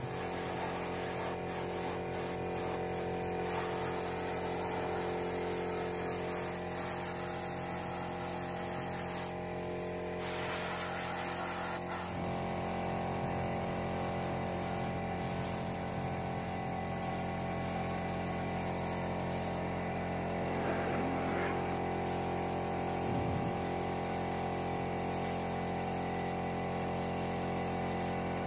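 Compressed-air spray gun spraying wood polish: a steady hiss of air and atomised finish, over a steady hum.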